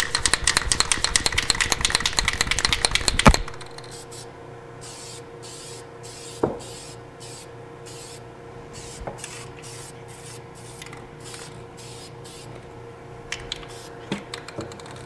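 A Dupli-Color aerosol paint can is shaken hard, its mixing ball rattling rapidly for about three seconds before a final sharp click. Then come a series of short spray hisses as paint is sprayed in passes, and a few more rattles near the end. A steady exhaust-fan hum runs underneath.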